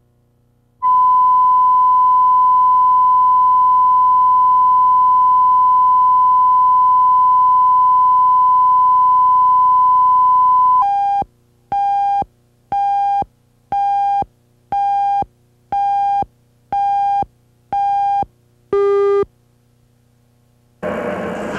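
Videotape line-up test tone: a steady, loud, pure tone with the colour bars for about ten seconds. It is followed by eight short beeps about a second apart, the countdown of a tape leader, and a ninth beep at a different pitch. After a brief silence, loud noisy sound cuts in just before the end.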